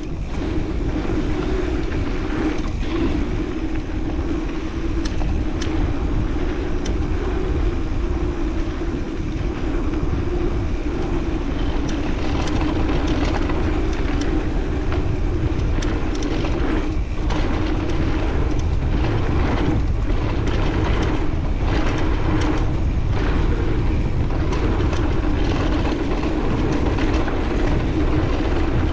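Mountain bike riding down a dirt trail: a steady buzz from the rolling bike, with rattles and knocks over bumps, thicker in the second half, and wind rushing on the chest-mounted camera's microphone.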